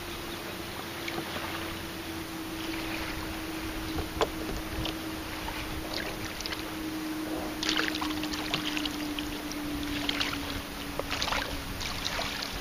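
Choppy lake water splashing and lapping against a paddled kayak, with irregular splashes from the paddle blade, most of them in the second half. There is a sharp knock about four seconds in, and a faint steady hum underneath that slowly drops in pitch.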